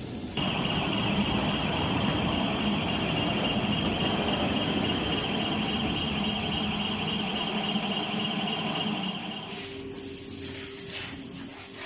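Machinery running: a steady noisy grind with a high whine over it. The whine stops about nine seconds in, leaving a quieter lower hum and hissing.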